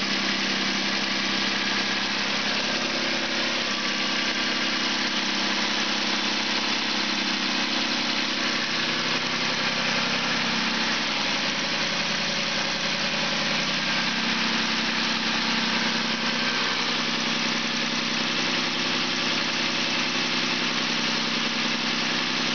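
2000 Suzuki Grand Vitara engine idling steadily with the hood open, held at an even speed with no revving.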